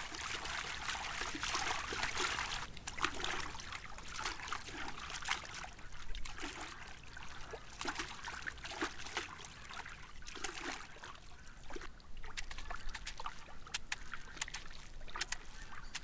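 Red deer wading and running through shallow water, their legs making irregular splashes and sloshing.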